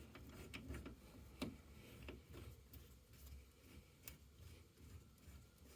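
Near silence with a few faint, scattered clicks and light taps from hose fittings being handled and connected at the boiler's fill point.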